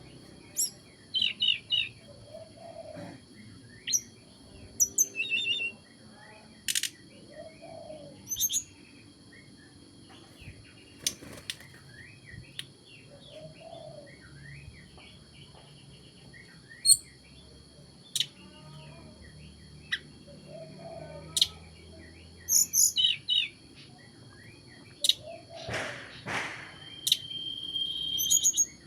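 A songbird learning its song: irregular short chirps, squeaky twittering notes and a few sharp high calls, with gaps between phrases.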